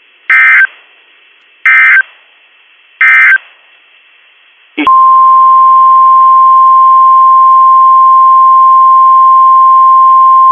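Emergency Alert System signals: three short digital SAME data bursts about a second and a half apart, short enough to be the end-of-message code. About five seconds in, a single steady, loud alert tone just above 1 kHz starts, the NOAA Weather Radio 1050 Hz warning alarm tone that leads into the next warning.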